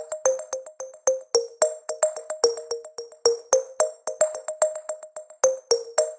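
Background music: short, bright plucked notes in a quick, steady rhythm of about three to four notes a second.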